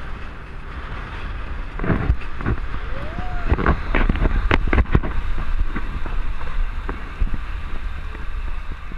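Wind and road noise on a camera riding on a moving Jeep. A run of sharp knocks and rattles comes in the middle, as the camera swings over on its mount.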